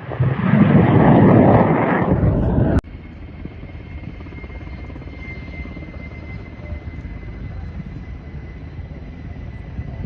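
Aircraft engine noise: a loud rushing roar that cuts off suddenly just under three seconds in, followed by a quieter steady drone with a faint high whine.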